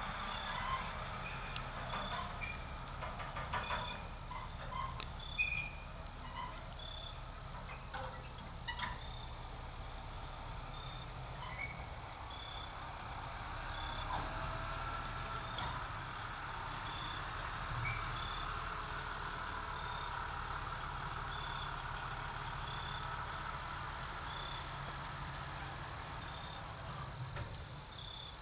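Outdoor evening chorus of small animal calls: short high chirps repeating about once a second over a steady high whine, with more scattered chirps in the first several seconds. A low rumble runs underneath.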